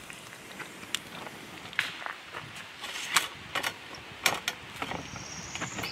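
Hinged wire grill basket of cooked pork being handled on a table: a scatter of sharp metal clicks, clinks and rattles.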